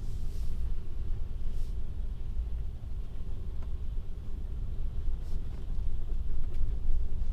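Low, steady rumble of a Tesla electric car rolling over a snow-covered lot, heard from inside the cabin: tyre and road noise with no engine note.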